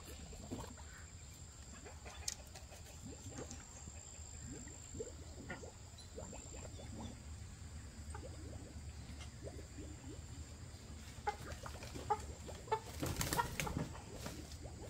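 Chickens clucking in short scattered calls. Near the end comes a louder flurry of noisy scuffling.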